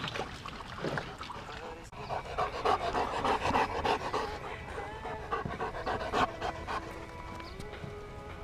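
Dogs panting hard close to the microphone, with music playing alongside and held notes sounding in the second half.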